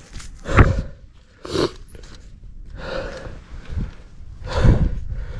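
A person breathing hard and out of breath, four heavy breaths about a second and a half apart.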